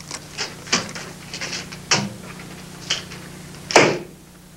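A string of irregular knocks and clicks, with a heavier knock near the end, over a low steady hum.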